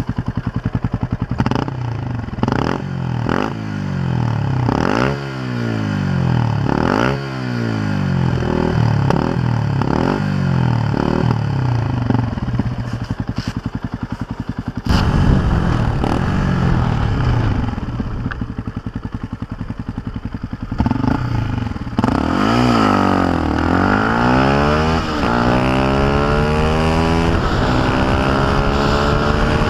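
Yamaha WR125X's 125 cc single-cylinder four-stroke engine breathing through an Arrow full exhaust system, with a new header and silencer. It is blipped in quick sharp revs from idle about a dozen times over the first twelve seconds and settles to an even idle pulse. In the last several seconds it pulls away, revs rising through the gears, with wind noise.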